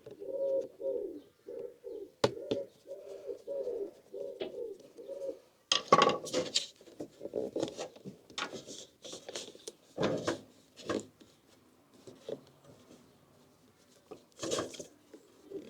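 A bird cooing, a run of low repeated calls for about five seconds, then scattered knocks, clicks and rattles of the diesel heater's fuel tank and its fittings being handled as it is taken off, the loudest knock about six seconds in.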